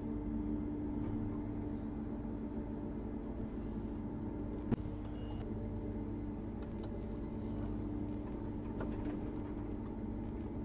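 Claas combine harvester running steadily, a constant machine hum with a low rumble beneath it. A single sharp click about halfway through.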